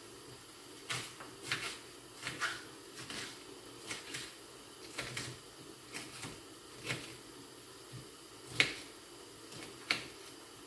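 Light clicks and taps of kitchen utensils being handled at a counter. They come irregularly, about one a second, with one sharper clack near the end.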